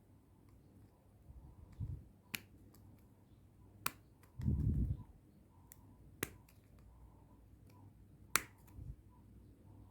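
Small metal and plastic parts of a door lock actuator's electric motor being handled and fitted together: a handful of sharp, separate clicks, with a few dull low knocks, the loudest a half-second thump a little before halfway.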